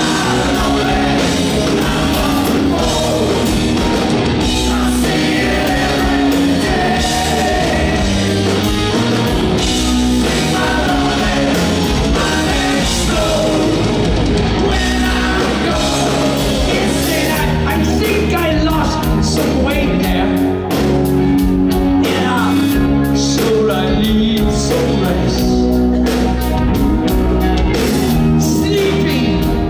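Live rock band with a male lead singer: the band plays loud and steady under the vocal line, heard from within the concert crowd.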